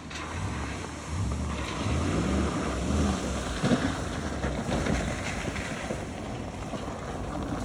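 Lexus GX470 SUV driving over a rough dirt trail: a steady low rumble of engine and tyres with wind noise, its pitch rising and falling and getting louder about a second in.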